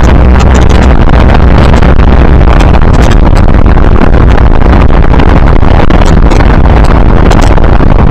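A 1929 Ford Model A speedster under way at road speed: its engine and the wind over the open car blur into one steady, loud, distorted noise that sounds awful, the recording overloaded throughout.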